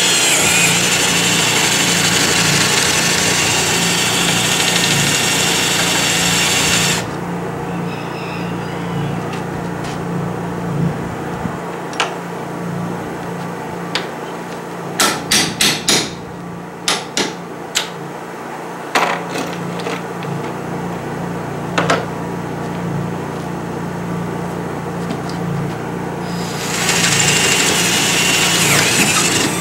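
Cordless drill boring through the metal molding rail and side panel with a high whine for about seven seconds, then a series of sharp taps from a hammer, several in quick succession around the middle. The drill starts boring again near the end. A steady low hum runs underneath.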